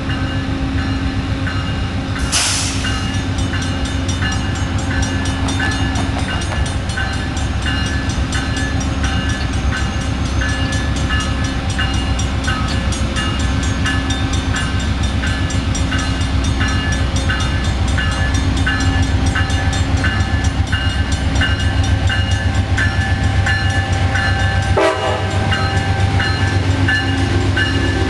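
VIA Rail GE P42DC diesel locomotive 917 running as it approaches slowly with its passenger train, its deep engine rumble growing louder as it draws alongside. A level-crossing warning bell rings with an even, repeating stroke over it.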